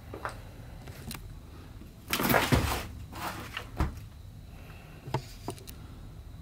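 Household clutter being handled and stepped through: a short scraping rustle about two seconds in, the loudest sound, then several light knocks and clicks.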